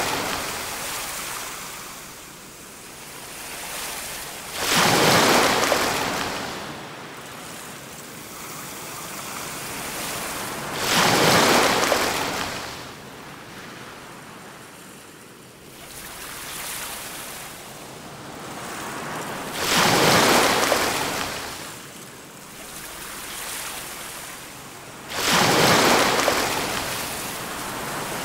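Ocean surf: waves breaking and washing back over a steady hiss, a loud surge about every six seconds, four times.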